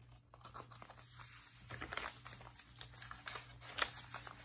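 Stiff, aged paper pages of a handmade junk journal being handled and turned, rustling and crinkling in short irregular crackles, with a few sharper crackles in the second half.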